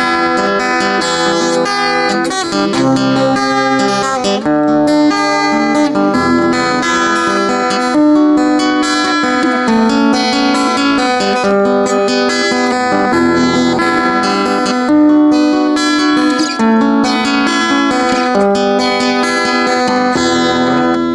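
Acoustic guitar played solo in an instrumental outro, strummed and picked chords changing every second or two.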